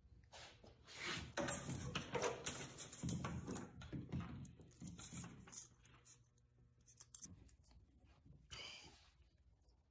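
Handling noise: small hand tools being picked up and moved about on a truck's tailgate, a run of irregular scrapes, scuffs and light clinks in the first half, then a brief rubbing sound near the end.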